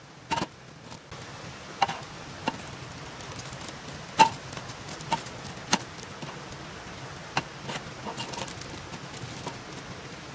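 Metal tin of canned luncheon meat being knocked and handled to free the block of meat: about eight sharp metallic knocks and clinks at uneven intervals, the loudest a little past four seconds in, over a steady background hiss.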